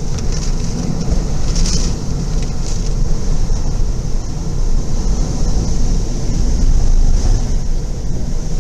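Hurricane wind blowing hard and steadily, a loud rush with deep rumbling buffeting on the microphone and a constant high hiss, flaring up a few times in the first seconds.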